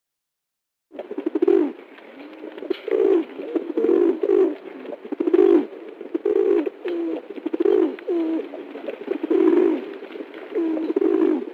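An animal calling over and over in low, short phrases that bend in pitch, starting about a second in.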